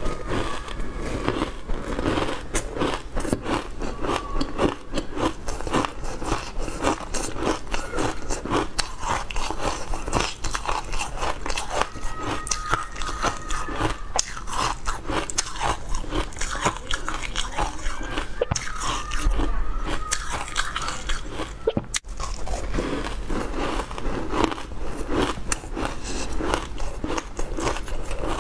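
Close-miked crunching and chewing of a brittle food coated in green powder: a dense run of irregular crackles and snaps.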